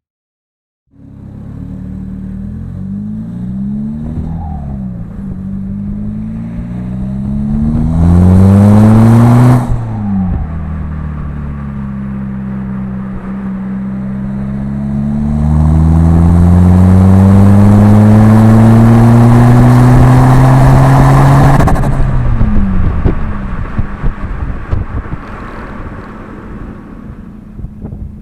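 Seat Leon Mk1's 1.9 TDI ARL four-cylinder diesel with a straight-pipe exhaust, idling and being revved. A short rev rises and falls about eight seconds in, then a long rev is held for about six seconds from around fifteen seconds in before the engine drops back to idle.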